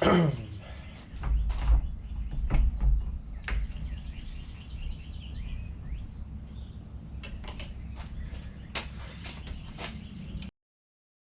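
Scattered clicks and knocks of tools and metal parts while the top end of an ATV engine is being taken apart, with birds chirping in the background. The sound cuts off suddenly near the end.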